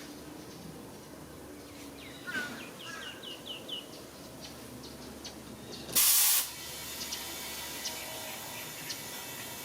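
A short, loud burst of compressed air hissing about six seconds in, as air is fed into the freshly plugged riding-mower tire. Before it, a quick series of bird chirps.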